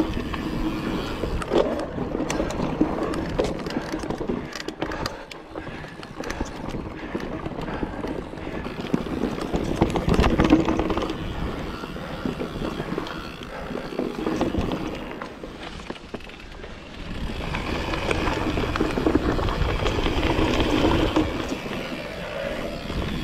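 Mountain bike riding down a dirt forest trail: the tyres running over soil and leaf litter and the bike rattling over bumps, with a rushing noise that rises and falls, twice dropping away for a second or two.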